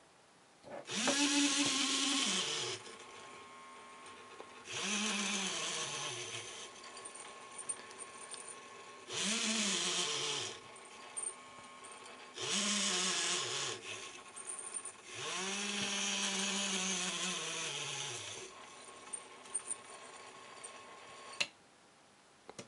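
The small DC gear motor of a toy robot arm runs five times, each run a whirring whine that drops in pitch as the motor slows and stops at a new set point under proportional control. There are small clicks between the runs.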